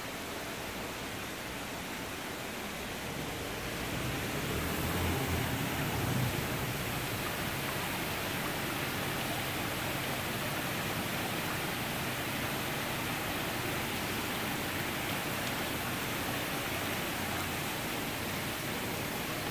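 Steady rushing background noise inside a greenhouse conservatory. It grows louder about four seconds in and carries a faint low hum.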